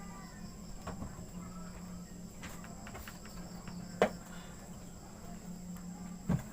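Crickets chirping steadily in the background as a continuous high trill, over a low steady hum. A sharp knock sounds about four seconds in, and another just before the end.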